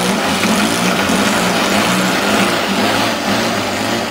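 Engine of a Flair Puppeteer radio-controlled model biplane running loud and steady as the model moves across the grass field.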